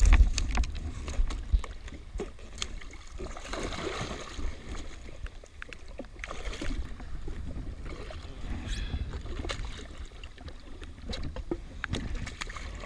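Water splashing and slapping at the side of a jet ski as a hooked snapper thrashes at the surface, over a steady low rumble of wind on the microphone. Scattered knocks and clicks of handling against the hull and gear are loudest in the first second or so.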